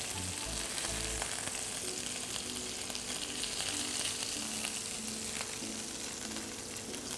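Lamb ribs sizzling in hot oil in a frying pan, a steady frying hiss, with a few faint clicks as tongs turn the pieces and lift them out.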